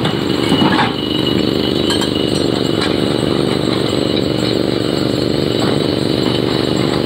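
Excavator's diesel engine running steadily, with some clattering in the first second.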